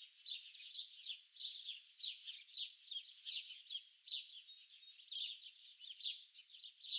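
A chorus of small songbirds chirping and twittering together, a dense stream of quick high notes, many falling in pitch, with no pause.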